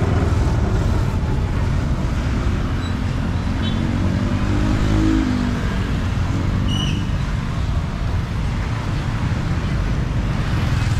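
Street traffic: a steady low rumble of vehicles, with one engine passing close a few seconds in, its pitch rising and then falling.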